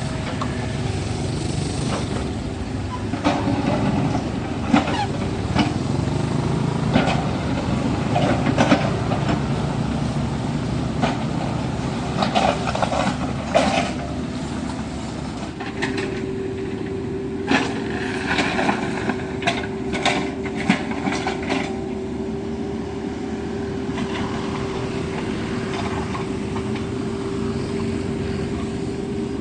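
Kubota U50 mini excavator running steadily, with clusters of sharp knocks and clanks as it works. A steady whine sets in about halfway through and holds.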